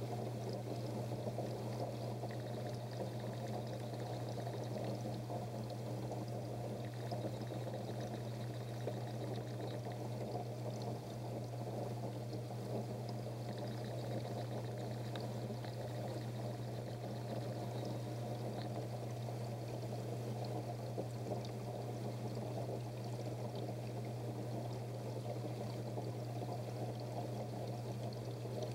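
Aquarium water pouring and splashing steadily, over a low steady hum.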